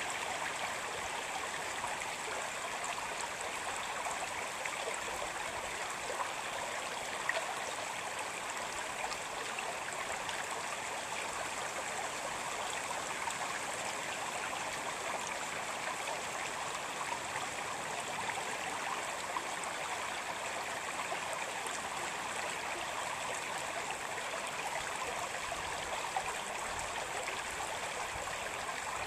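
Shallow stream running over a bed of rounded stones: a steady rush of flowing water.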